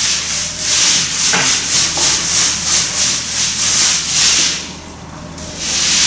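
Small paint roller being rolled up and down a wall, laying on white paint in repeated strokes at about two or three a second, with a short pause about a second before the end.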